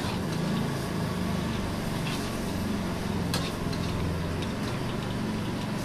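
Metal spatula clinking against a steel wok of stir-fried pad thai a few times, over a steady low rumble.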